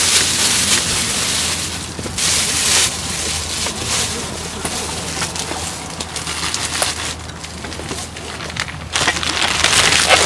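Black plastic carrier bag rustling and crinkling as it is pulled open and peeled back from around a plastic takeout food container, louder at the start and again about two seconds in.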